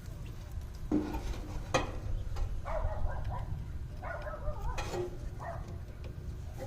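A few sharp metallic clicks and knocks from hands and tools working on an air-conditioner condenser, over a steady low rumble. In between there are two short wavering whining cries.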